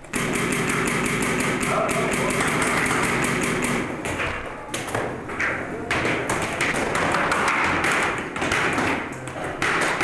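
Paintball markers firing in rapid strings of sharp pops.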